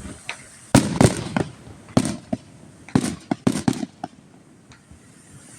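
Fireworks going off: a quick run of about eight sharp bangs, the loudest around one to four seconds in, then dying down.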